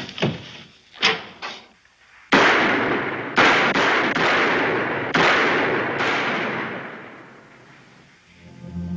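A volley of gunfire from several guns at once, starting sharply a little over two seconds in. Fresh blasts follow over the next few seconds before it dies away. Two short knocks come just before it.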